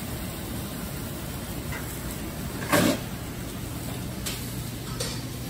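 Steaks sizzling on a restaurant grill, a steady hiss, with one loud clunk about three seconds in and a couple of lighter knocks after it.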